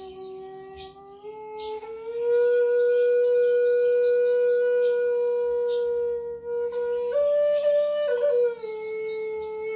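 A flute plays long held notes, sliding up about a second in, holding, then stepping up briefly and back down near the end, over a steady low drone. Birds chirp throughout.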